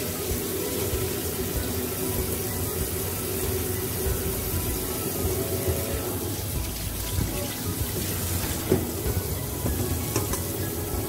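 Kitchen tap running steadily into a stainless steel sink, the stream splashing over raw pork lung pieces as they are rinsed and turned by hand.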